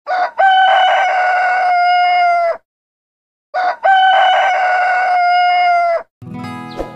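Rooster crowing twice, the same long crow repeated: each opens with a short note, then holds one long call that drops away at its end.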